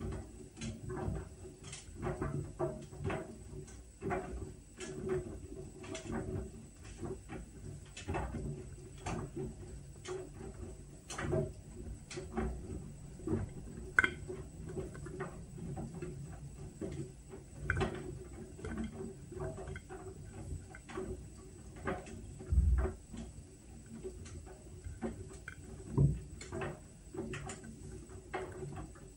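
Whirlpool washing machine running its Steam Refresh cycle: a low steady hum with irregular light clicks and ticks, about one or two a second, and two heavier low thumps in the last third.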